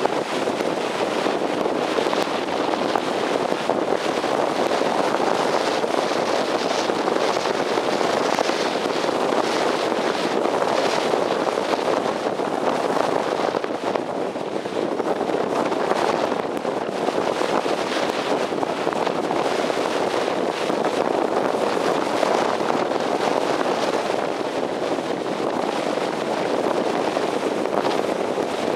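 Steady rush of wind over the microphone of a camcorder mounted on the roof of a moving car, an even noise with no distinct engine tone.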